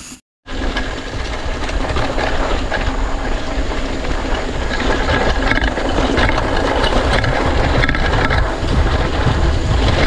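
Mountain bike ridden downhill on a dry dirt singletrack, heard from a handlebar-mounted camera: wind rumbling on the microphone, with the tyres and the bike rattling over the bumps. It starts abruptly after a split-second gap.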